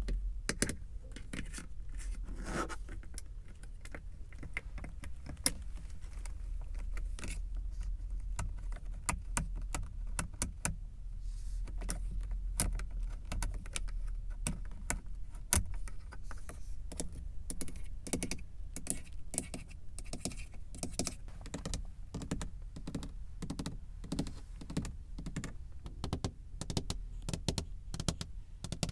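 Fingertips and nails tapping on a car's surfaces in quick, irregular clicks for ASMR, with no pause.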